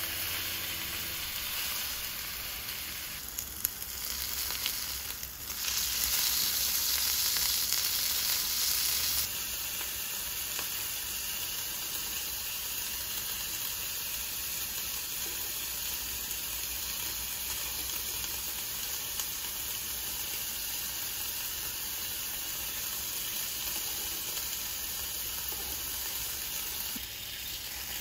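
Thinly sliced meat sizzling as it fries in a small rectangular tamagoyaki pan, with a couple of light clicks about four seconds in. The sizzle grows louder for a few seconds in the middle, then settles to a steadier, quieter hiss.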